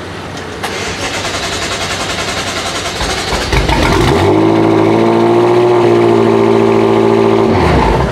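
BMW M5 F10's twin-turbo V8 with an Akrapovic exhaust being started on a low battery: the starter cranks for about three seconds, then the engine catches with a flare about three and a half seconds in. It runs loudly at a steady high idle, then falls in pitch and stops near the end.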